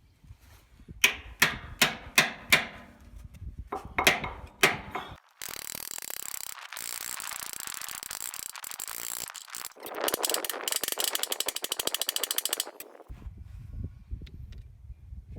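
Hand-tool work on metal: a run of sharp metal strikes that ring briefly, then a steady hiss, with a fast, even ratcheting clatter for a few seconds near its end.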